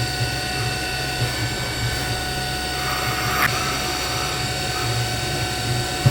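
UDM-2216 three-axis CNC machining center running while milling a steel part: a steady spindle whine made of several held tones over a low motor hum, with a brief harsher swell about three and a half seconds in.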